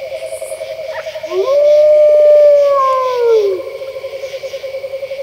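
A wolf howl begins about a second in, rises, holds, then falls away over about two seconds. It sounds over a steady, wavering background tone.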